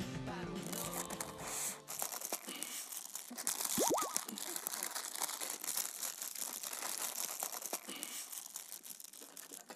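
Parchment paper crinkling and crumpling as it is wrapped by hand around a lotus-leaf bundle. Music fades out over the first two seconds, and a short rising whistle-like glide sounds about four seconds in.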